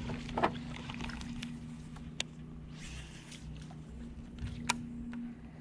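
Baitcasting reel cranked steadily with a low whir, with a few light clicks, as a soft plastic frog lure is retrieved.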